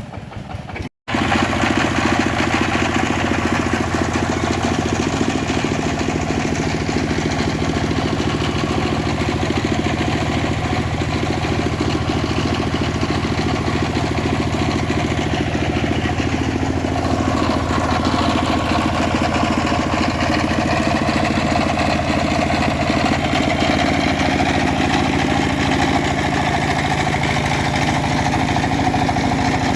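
Engine-driven homemade bandsaw mill running steadily. Its tone shifts a little about halfway through.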